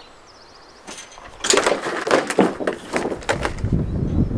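Quick run of knocks, clicks and rustling from cables, connectors and gear being handled, starting about a second and a half in, with wind rumbling on the microphone from about three seconds in.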